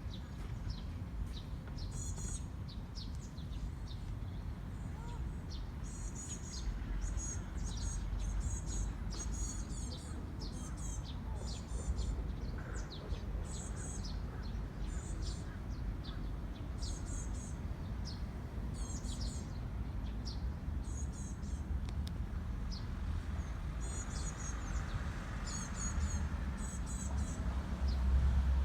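Small birds chirping and twittering in quick high bursts throughout, over a steady low rumble.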